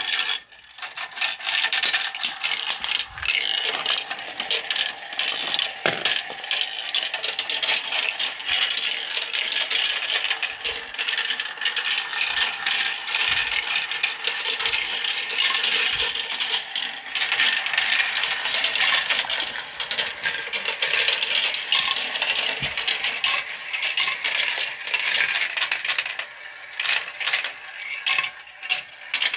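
Many marbles rolling and clattering down a plastic marble run, a dense, continuous rattle of small clicks against the track pieces, thinning to scattered clicks near the end.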